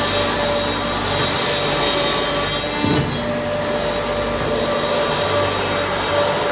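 Helix 80S wood shaving machine running: a steady motor hum under a loud hiss of wood being cut into shavings, the hiss dropping away briefly about two and a half seconds in.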